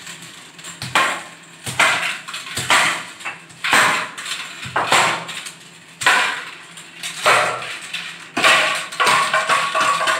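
A hollow plastic toy bat hitting and scraping a tiled floor: about ten sharp knocks, roughly one a second.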